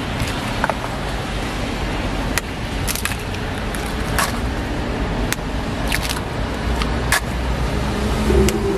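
Eggs cracked one after another onto batter in egg-bread griddle molds: sharp shell cracks about once a second, over a steady low rumble.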